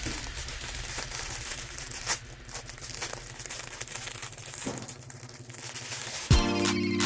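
Packaging crinkling and rustling as it is handled and opened, with scattered sharp crackles. Music starts near the end.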